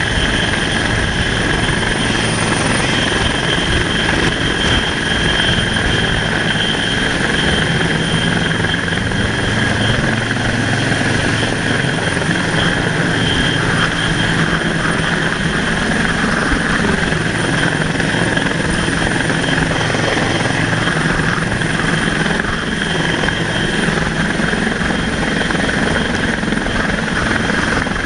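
Helicopter running steadily: dense rotor and engine noise with a steady high turbine whine.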